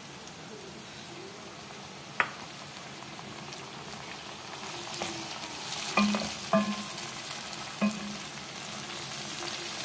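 Chopped tomatoes and spices sizzling in hot oil with fried onions, stirred with a wooden spatula that knocks against the pan a few times. The sizzle grows louder about halfway through.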